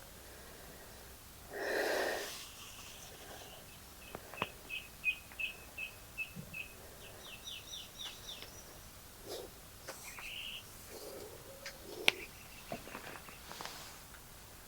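A small bird singing a run of evenly spaced high chirps, about four or five a second, ending in a few quicker rising notes, with one more call a couple of seconds later. A short breathy noise comes about two seconds in, and a few light knocks follow later on.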